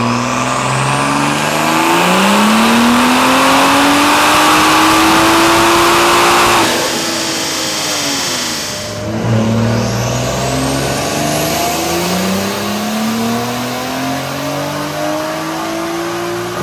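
Toyota Supra's B58 turbocharged straight-six with a Remnant upgraded turbo, run at full throttle on a chassis dyno: the revs climb steadily with a loud rushing hiss, cut off abruptly about seven seconds in and fall away, then climb again from about nine seconds.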